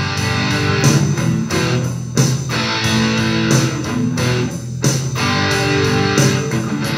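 Electric guitar strumming chords over a rock backing track, with no vocals.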